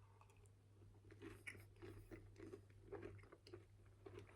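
Faint chewing of a cookie with a crunchy outside and a soft inside: a string of small irregular crunches starting about a second in, over a steady low hum.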